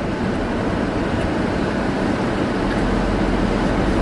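Steady road and engine noise of a moving car, heard from inside the cabin; the low rumble grows a little stronger near the end.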